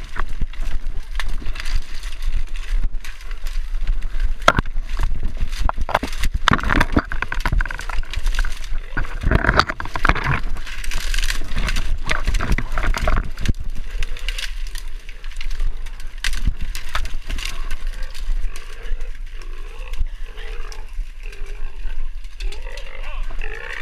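Dry cane and brush crackling and snapping as a hunter pushes through it on foot, with a hog's squealing cries heard at times and clearest near the end.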